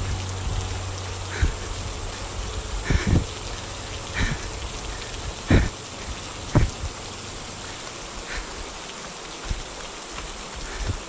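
Steady hiss of rain falling on forest foliage, with a few irregular footsteps on the trail; the loudest thuds come about five and a half and six and a half seconds in.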